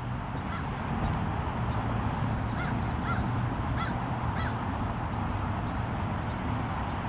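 Bird calls: about six short, arched call notes in the first half, over a steady background hiss and low hum.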